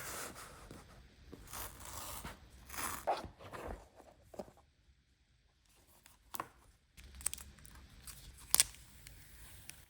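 Packaging of a newly delivered phone being opened: short scraping and tearing rasps, a pause, then a few sharp clicks and taps as the box is handled.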